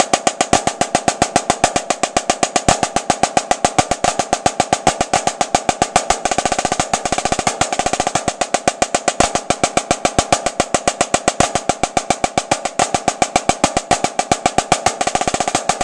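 Snare drum played with sticks in an even, steady stream of strokes, eight on one hand and then eight on the other, each hand change starting with a flam and an accent, so louder strokes come at regular intervals. The drum rings a little after each stroke.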